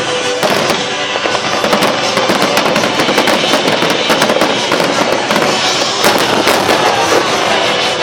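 Fireworks display going off: rapid bangs and dense crackling, thickest early on and again near the end, over music playing alongside.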